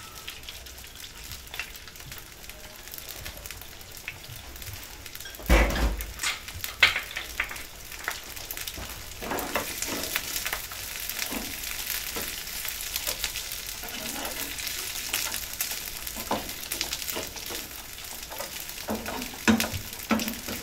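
Leftover cooked rice sizzling in ghee in a non-stick frying pan, the sizzle growing stronger after a few seconds, while a spatula scrapes and knocks against the pan as the rice is stirred. A single loud thump about five and a half seconds in.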